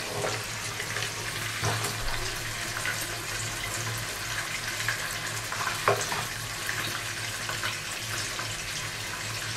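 Chicken pieces sizzling in hot oil in a kadai, a steady hiss, with a spatula knocking against the pan twice as pieces are lifted out.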